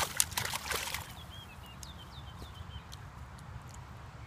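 A flurry of sharp splashing and net-rattling noises in the first second as fish are tipped from a keepnet into shallow water. Then a bird calls a quick run of short, falling chirps.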